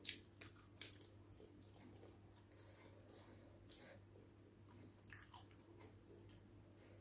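Faint close-miked chewing of a mouthful of egg biryani: soft wet smacks and clicks every second or so, over a steady low hum.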